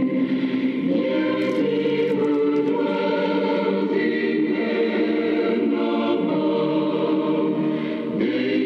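Choir singing a Christian song, several voices holding notes in harmony, with a short breath between phrases near the end.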